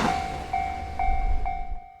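Japanese level-crossing warning bell ringing, a pitched ding struck about twice a second, while the rumble of a passing train dies away in the first half-second.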